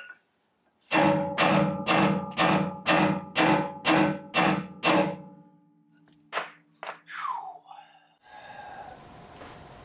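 Hammer beating on the steel steering linkage of a Ram Power Wagon, about nine blows at roughly two a second, each one ringing like struck metal, and the ring fades over the next few seconds. The blows are meant to shock a seized drag link free of the pitman arm.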